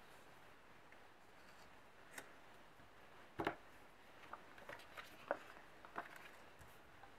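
Faint desk-work handling sounds: a scatter of soft clicks and taps of washi tape and paper being handled and pressed onto a planner page, the loudest about halfway through.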